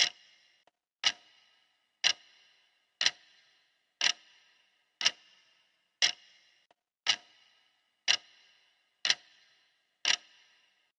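Clock ticking steadily once a second, each tick sharp with a short ringing decay.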